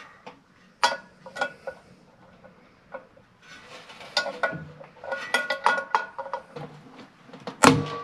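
Hand tool clicking and scraping against the metal hub of a furnace blower wheel as a stuck set screw is worked loose, in a run of light metallic clicks that grows busier midway. One sharp clank near the end leaves the sheet-metal wheel ringing briefly.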